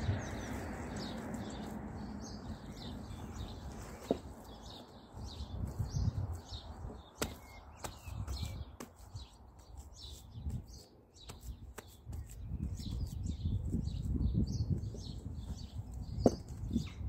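Gloved hands scooping and pressing loose soil, making uneven low scraping and rustling with a few light knocks. Small birds chirp repeatedly in the background.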